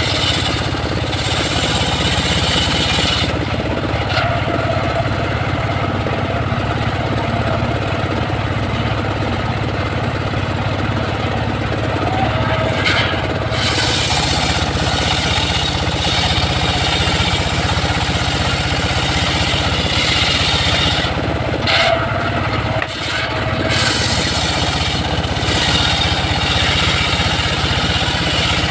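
Homemade circular sawmill running, its engine droning steadily while the blade rips lengthwise through a log with a high hissing whine. The cutting hiss drops out briefly three times, about 3, 13 and 21 seconds in.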